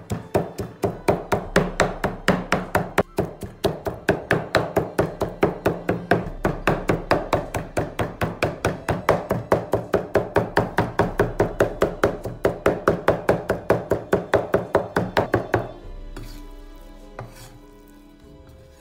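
Kitchen knife chopping fast and evenly on a thick wooden log-slice cutting board, mincing raw fish, about four strokes a second; the chopping stops about three seconds before the end. Background music plays underneath.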